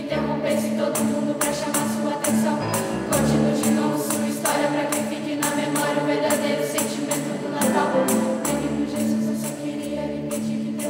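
Mixed youth choir singing in parts, with a tambourine struck on a steady beat, a few times a second.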